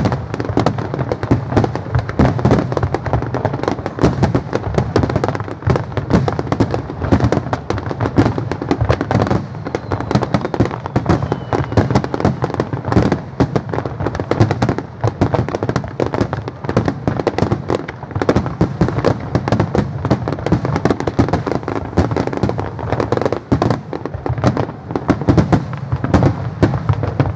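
Fireworks barrage: aerial shells bursting in rapid succession, many loud bangs a second overlapping into a continuous rattle.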